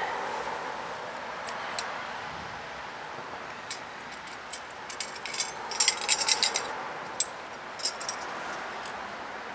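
Light metallic clinks and rattling of tools and metal parts being handled during brake-line work, a few scattered clicks building to a quick jangling cluster about six seconds in, over a steady background hum.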